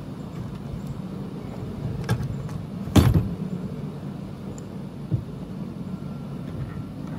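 Wooden stock and metal action of an AEA Challenger .357 bullpup air rifle being taken apart by hand: a few light clicks and one sharp knock about three seconds in, over a steady low hum.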